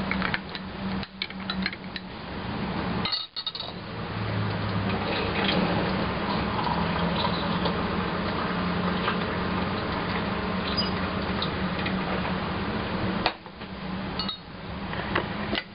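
Metal spoon stirring hot drinks in glass mugs, with liquid swishing and light clinks of the spoon against the glass.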